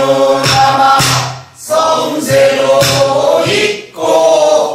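Several voices singing a pansori danga in unison, holding long, wavering notes, with a few strokes on a buk barrel drum keeping the beat.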